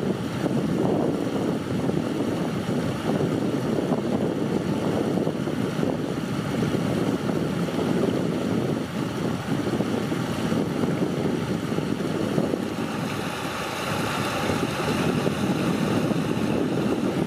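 Shallow floodwater rushing and churning in a fast current over a muddy bank, a steady, unbroken rush.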